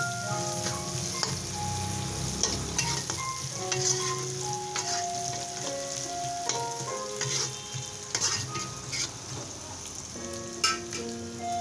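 Chopped spring onions sizzling and crackling in hot oil in an iron kadai as they are stirred, with a few sharper knocks. A faint tune of held notes plays underneath.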